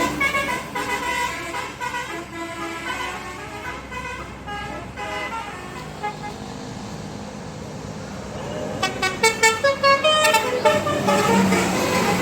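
Multi-tone 'telolet' bus horn (Basuri type) playing a changing tune that fades over the first few seconds, with traffic running underneath. About nine seconds in, a rapid run of short horn notes sounds, followed by a lower held note near the end.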